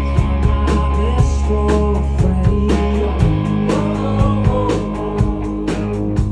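A rock band playing live: drum kit with steady cymbal strokes, bass, electric guitar and singing.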